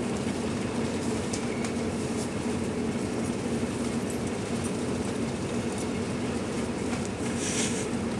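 Steady low hum of a ship's machinery, one constant drone with no change in level.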